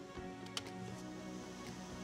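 Faint background music, with one light click about half a second in as the small camera module is set down on the metal pan of a digital pocket scale.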